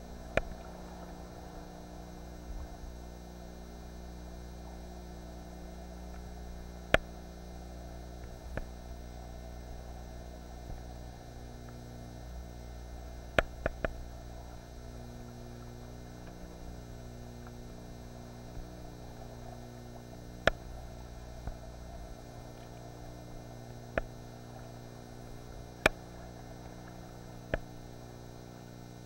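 Steady electrical hum made of several fixed tones, broken by about a dozen sharp clicks or knocks at irregular moments.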